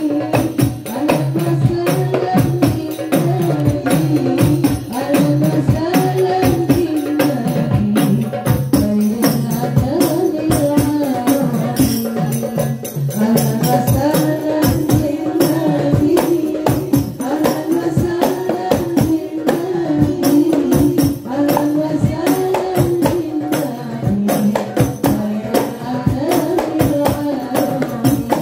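Voices singing a sholawat melody in unison over rebana frame drums played by hand in a fast, steady interlocking rhythm.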